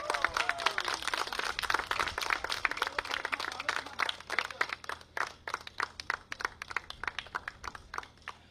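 Crowd applause, dense at first, then thinning out and fading toward the end.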